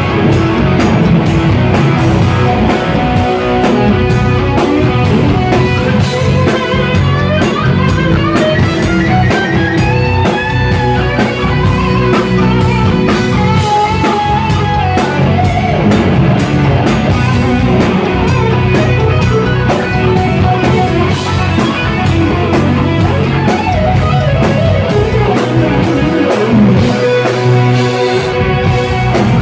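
Live instrumental rock: an electric guitar plays a lead melody with bending, gliding notes over a drum kit and the rest of the band, loud and steady throughout.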